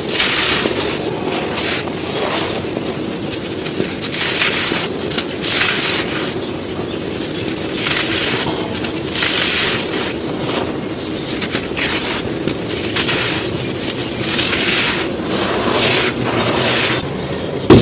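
Dry moulded black sand shapes being crumbled: a continuous run of crisp, crackly crunches, irregularly spaced, roughly one every half second to a second.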